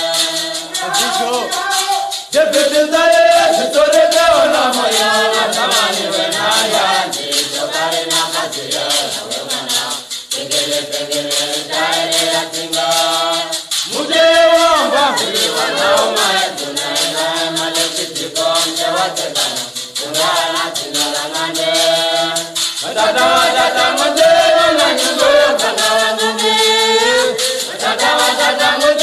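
Voices singing together over a shaker rattle that keeps an even beat, the singing breaking off briefly between phrases.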